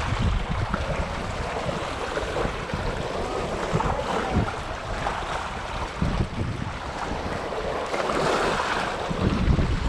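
Wind buffeting the microphone in gusts over small waves splashing against a rocky shoreline.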